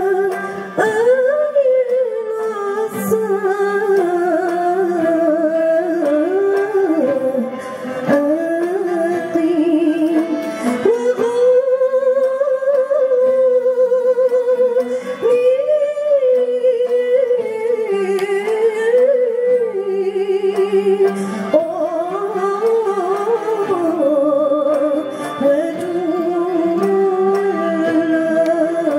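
A woman singing a melody in long held notes with a wavering vibrato and ornamented turns, accompanied by a string ensemble of plucked ouds and mandolins and bowed violins.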